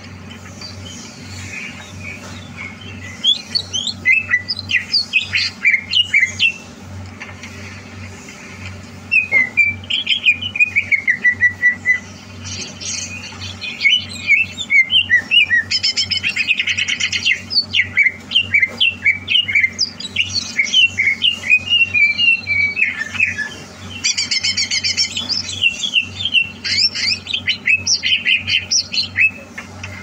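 Greater green leafbird (cucak hijau) singing: phrases of rapid, varied chirps and whistles with short pauses between them, one phrase ending in a falling slur. A steady low hum runs underneath.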